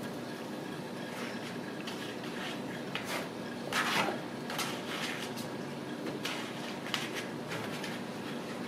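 Kittens scampering and pouncing on a hardwood floor and against a fabric play tent: scattered light taps, scuffs and paw clicks, with a louder rustling scramble about four seconds in. A steady low hum sits underneath.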